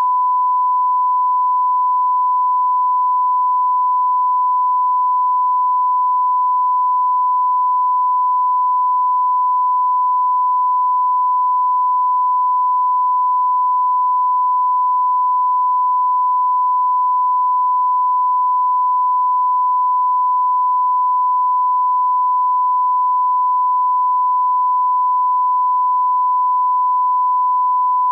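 Steady 1 kHz line-up tone, a single pure unbroken pitch: the reference tone that runs with colour bars at the head of a broadcast master, used for setting audio levels.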